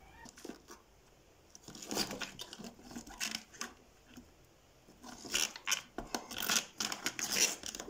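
Handfuls of thin green peppers being pushed down into a glass jar: stems and skins rustling and rubbing against each other and the glass, with small knocks. It comes in two spells, a quieter stretch between them.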